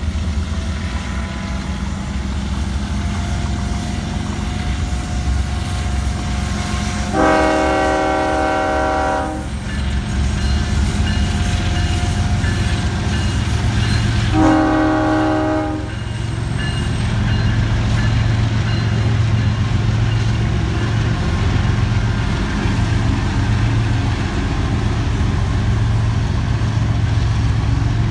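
Union Pacific diesel locomotives hauling a freight train past with a steady low engine rumble. The lead locomotive's air horn sounds twice, a long blast about seven seconds in and a shorter one about fourteen seconds in.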